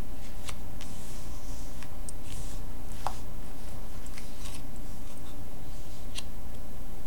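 Tarot cards being slid and swirled face down across a cloth-covered table by hand: soft papery swishes with a few sharp light clicks, over a steady low hum.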